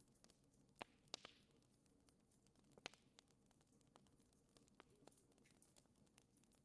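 Campfire of burning firewood crackling faintly: scattered small pops and snaps over a low hiss, with a few sharper pops about a second in and just before three seconds.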